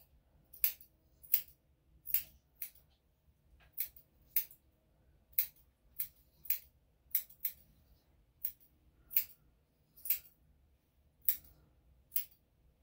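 Grooming scissors snipping the hair around a dog's paw: a series of crisp snips, one or two a second, irregularly spaced.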